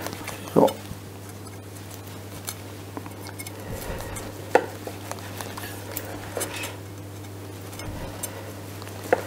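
Chef's knife cutting through a crisp potato rösti roll and knocking on a wooden cutting board, a few short sharp taps spread out with pauses between.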